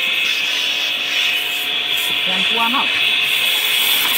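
High-pressure washer jet spraying water against a tractor's metal bodywork: a steady, loud hiss.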